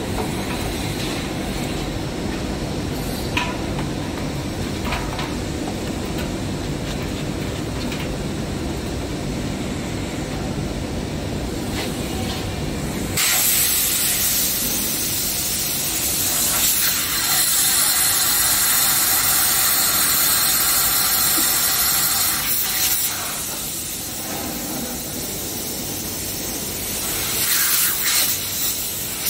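Compressed air hissing out of a red air hose into the diffusion pump's cooling-water fitting, blowing out the water jacket; it starts suddenly about halfway through, eases off later and swells again near the end. Before it, a low steady machinery hum.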